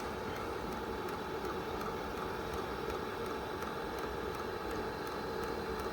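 HCalory TC2S diesel heater running on its first start-up: the blower fan runs with a steady hum, and the fuel pump ticks faintly at a regular pace. Air is moving but the fuel is not yet burning.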